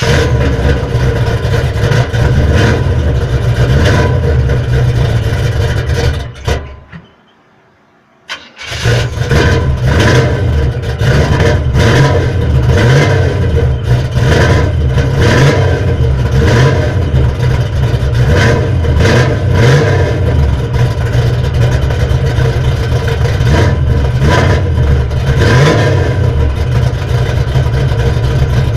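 1979 Chevy Malibu's 383 V8 with dual exhausts running at a loud idle, just after it has been fitted with a new flexplate. About six and a half seconds in the engine stops. A second and a half later it is restarted, fires at once and runs on steadily.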